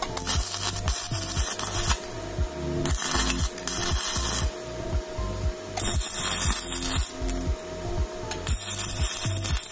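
Stick-welding arc crackling in four bursts of a second or two each as an electrode is struck on a small engine's stator plate. Background music with a steady beat plays underneath.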